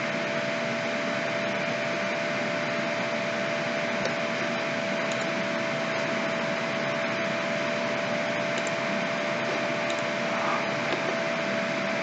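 Steady hiss with a constant hum tone running under it, and no speech: the background noise of a voice-over recording.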